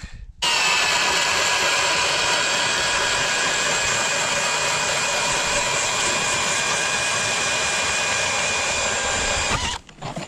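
Powered ice auger drilling a hole through thick ice: a steady motor whine that starts about half a second in, holds for about nine seconds, and stops abruptly near the end.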